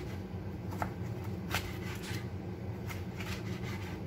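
Kitchen knife cutting cucumbers lengthwise into strips on a cutting board: a few separate crisp cuts and taps of the blade against the board, over a steady low hum.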